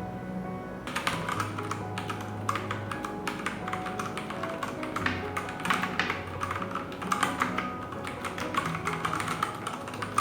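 Typing on a Ducky One 3 TKL mechanical keyboard with brown tactile switches: a quick, irregular run of key clacks that starts about a second in and keeps going, over background music.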